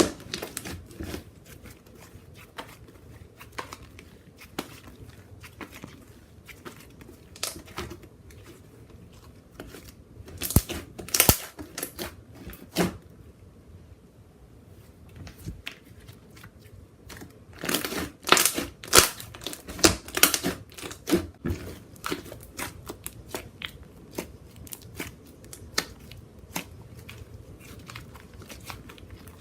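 Thick clay slime being squished and stretched by hand, making sticky clicks and bubble pops, with two busier runs of pops, one around a third of the way in and one a little past the middle.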